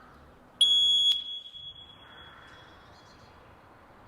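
Alert tone of a voice-evacuation fire alarm: one loud, high-pitched beep about half a second long, a little over half a second in, ringing on briefly as it fades.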